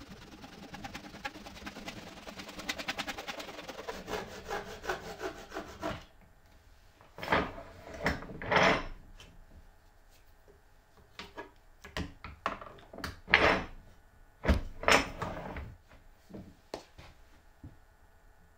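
Hand saw cutting through a plastic cutting board in quick, short strokes, stopping about six seconds in. After that come a handful of short, louder bumps and brushing sounds, spaced over the next several seconds.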